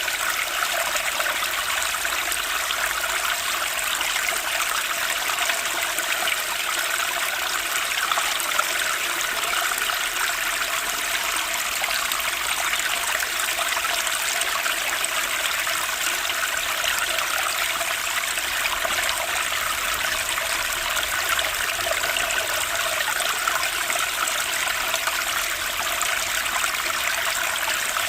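Water running steadily in a stream, an even unbroken flow.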